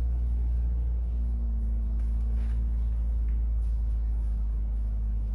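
Steady low rumble with a constant hum beneath it, unchanging throughout.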